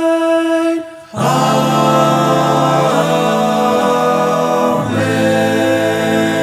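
Synagogue choir singing a cappella. A single voice holds a long note, then after about a second the full choir comes in on sustained chords, changing chord twice.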